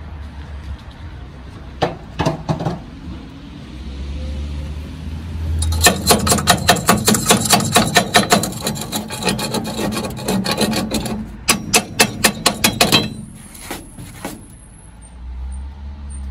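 Steel chipping hammer knocking slag off a fresh stick weld on a sheet-steel table: a few knocks, then a run of quick metallic strikes at about three a second lasting some five seconds, then a shorter run.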